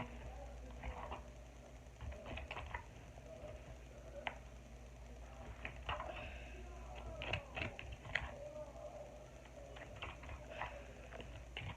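Spoon stirring glue-and-detergent slime in a bowl: irregular clicks, taps and scrapes.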